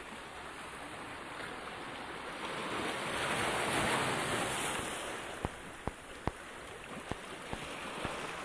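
Sea waves washing over shoreline rocks, swelling to a loud rush midway and then easing. A handful of sharp clicks follow in the last few seconds.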